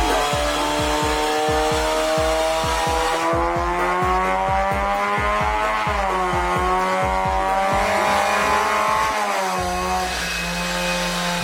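Honda Fit GK5's four-cylinder engine pulling hard through an aftermarket downpipe and front-pipe exhaust. The note rises steadily, drops about six seconds in, climbs again, then falls away near the end.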